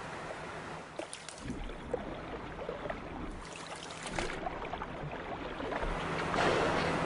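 Water sloshing and splashing against the side of a boat, with a low steady hum underneath that grows louder about six seconds in.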